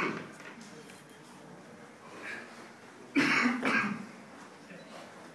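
A person coughing, a short double burst about three seconds in.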